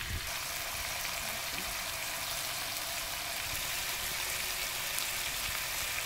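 Boneless chicken leg sizzling steadily in a little oil in a frying pan.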